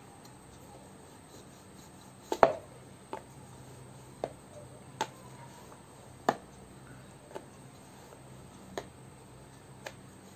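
Wooden rolling pin clacking against a wooden rolling board while dough is rolled out: about eight sharp, irregularly spaced knocks, the loudest a double knock about two and a half seconds in.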